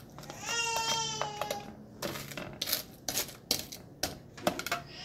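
A young child crying, one held cry of about a second and a half that falls slightly in pitch at its end. After it comes a run of sharp clicks and knocks from dishes being handled.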